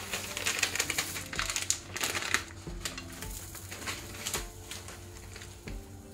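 Irregular crackling and light clicking from a tortilla and omelette cooking in a nonstick frying pan, busiest in the first half, over soft background music with a slow beat.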